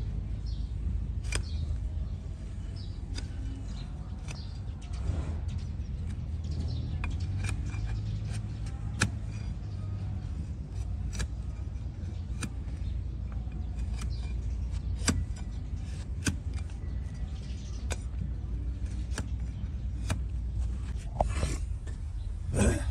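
A large flat hoof knife paring the overgrown horn of a donkey's hoof, giving irregular crisp cracks and scrapes as slices come away, over a low background rumble. Near the end comes a louder scrape.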